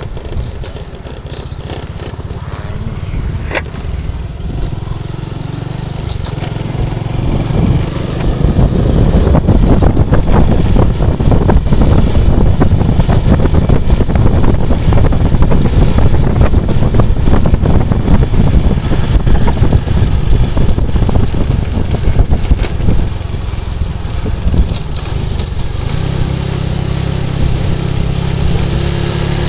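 Motorcycle ride: the engine running under a continuous rumble of wind on the microphone, louder from about eight seconds in and easing off again a few seconds before the end.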